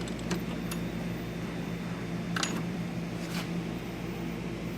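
Steady mechanical hum in a workshop, with a few light clicks and taps, the clearest about two and a half seconds in.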